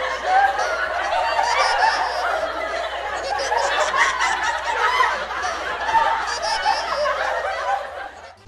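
Two women's voices overlapping in a continuous jumble of cries and laughter-like sounds as they scuffle, with no clear words, fading down near the end.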